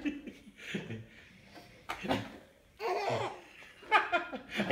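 Baby laughing in several short bursts.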